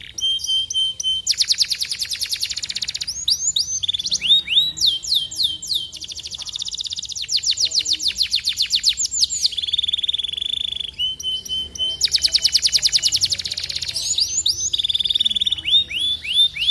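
Domestic canary singing a long, unbroken song of fast trills: rapid runs of repeated notes alternate with downward-sweeping notes and a short steady whistled note, with a buzzy rolling phrase about ten seconds in.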